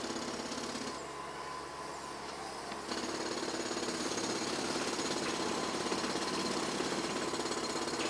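A steady, fast rattling buzz of some machine, a little quieter between about one and three seconds in.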